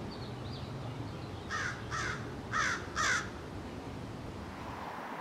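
A bird gives four short, harsh calls about half a second apart, starting about a second and a half in, over a steady outdoor background hiss. A few faint, high chirps come at the very start.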